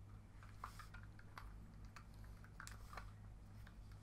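Faint, irregular small clicks and scrapes of plastic on plastic as a plastic fork pries at the battery compartment cover of a Proplica Core Drill toy, over a low steady hum.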